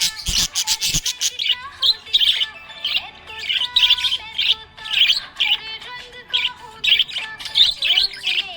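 Small pet parrots chirping: a busy run of short, high chirps, about two a second.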